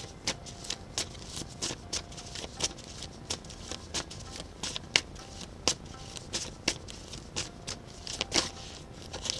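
A deck of tarot cards being shuffled by hand: an uneven run of sharp card clicks and snaps, about two or three a second.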